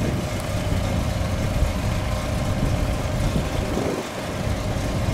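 Classic American car engines running at low speed as a line of customised cars pulls slowly away, a low, steady rumble.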